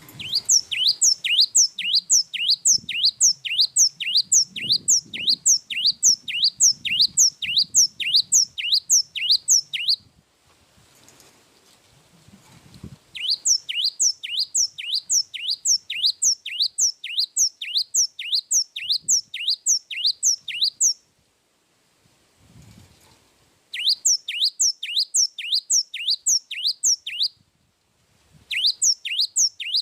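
Gelatik wingko (cinereous tit) singing in long runs of quick, sharply falling whistled notes, about three a second, in four phrases separated by short pauses.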